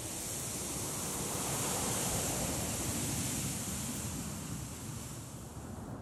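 Wind blowing sand across a dune: a fine, high hiss of moving grains over a low wind rumble. The gust swells about two seconds in and eases off toward the end.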